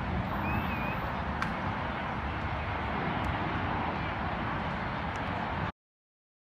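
Steady outdoor background rumble and hiss, cut off suddenly into silence near the end.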